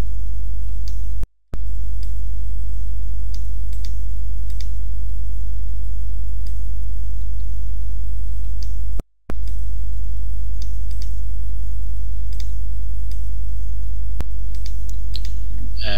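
Loud, steady low electrical hum on the recording, with faint mouse clicks now and then as parts are picked on screen. The sound drops out completely twice, briefly: about a second in and about nine seconds in.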